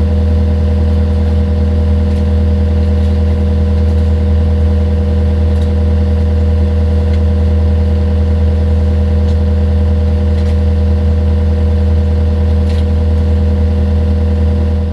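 An engine running at a constant speed, a steady unchanging drone with no revving, most likely the digging machine working on the job.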